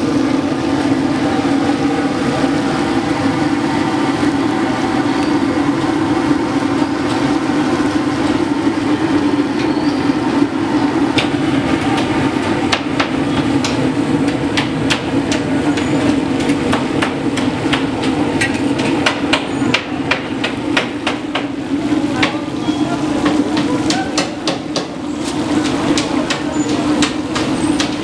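Metal skimmer and spatula knocking and scraping against a large iron deep-frying wok, in quick runs of clinks that start about eleven seconds in. Under them is a steady low hum.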